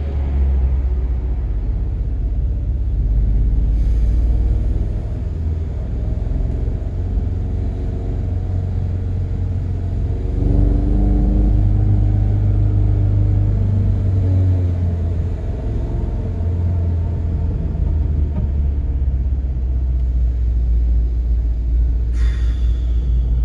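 Volkswagen GTI Mk7's turbocharged 2.0-litre four-cylinder running under load, a steady low rumble whose engine note shifts as the car speeds up and slows. There is a brief hiss near the end.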